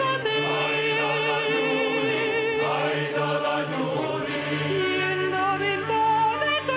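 Operatic soprano singing held notes with a wide vibrato in a zarzuela number, over steady instrumental accompaniment.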